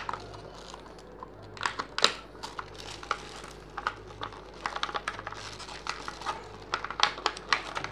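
Plastic packaging crinkling, with many small irregular clicks and crackles, as a blister-packed screwdriver and socket set is handled.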